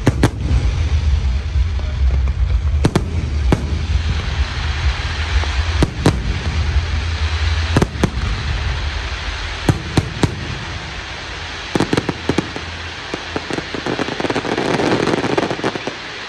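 Aerial firework shells bursting overhead: a string of sharp bangs, some in quick pairs, over a continuous crackling hiss, with a dense run of rapid crackles near the end.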